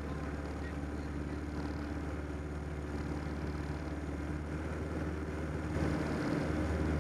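1946 Piper J-3 Cub's piston engine and propeller droning steadily in cruise flight, heard from inside the small cabin; it grows slightly louder near the end.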